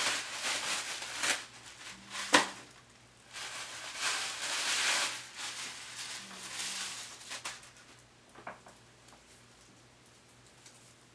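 Rustling and crinkling as a packaged synthetic wig is pulled out of its wrapping and netting and handled, with one sharp click about two seconds in. The handling dies away after about eight seconds.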